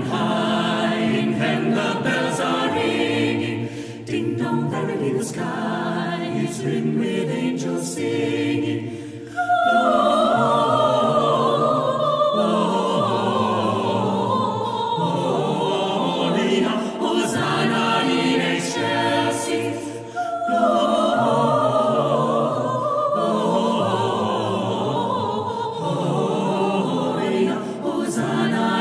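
Choir singing in parts. About ten seconds in, and again about two-thirds of the way through, a high soprano line comes in above the other voices.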